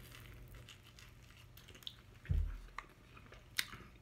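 A person biting into and chewing a grilled steak sandwich close to the microphone, with small crunches from the toasted panini bread. A brief low thump comes a little past halfway and a sharp click near the end.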